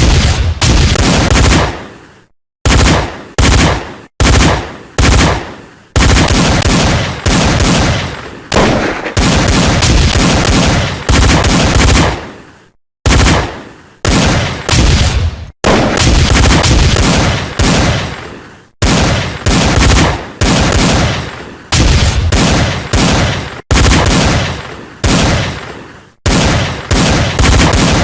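Gunfire sound effects played back one after another: loud bursts of shots, a new burst every second or two, each fading and then cutting off abruptly.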